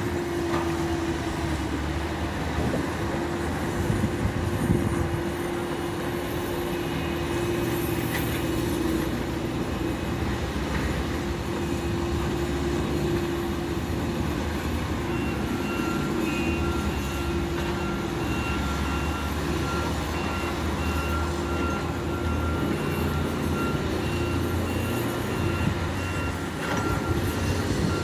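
Diesel engines of a single-drum roller compactor and a crawler excavator running steadily: a low rumble with a constant hum. Faint, evenly spaced beeping joins in about halfway through.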